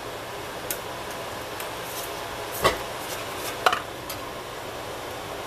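Three short knocks and clinks of kitchen items being handled on the countertop and cutting board, the loudest about halfway through, over a steady room hum.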